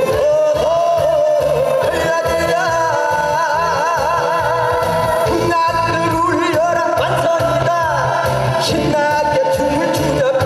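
Korean trot song performed live over an amplified backing track: a melody with heavy vibrato over a steady bass beat.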